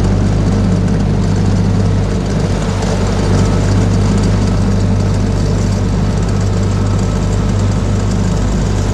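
Tohatsu 15 hp outboard motor running steadily under way on a small rigid inflatable boat, a constant, even engine drone.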